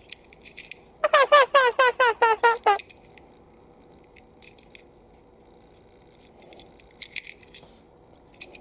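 A quick run of about nine short squeaks, each falling in pitch, lasting under two seconds; light clicks and taps from a toy train engine being turned over in the hands come before and after it.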